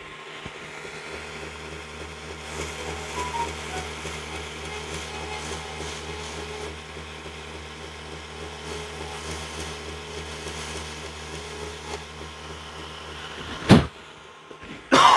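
An electric shop power tool's motor hums steadily, with a rasping grind of abrasive on the knife handle from about two seconds in. It stops shortly before the end, followed by a loud sharp burst and then coughing.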